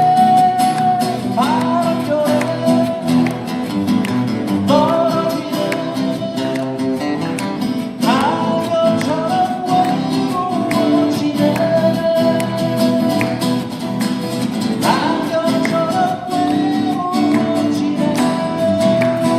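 A live band playing a song on strummed acoustic guitars, with a voice singing long held notes that swoop up into each phrase.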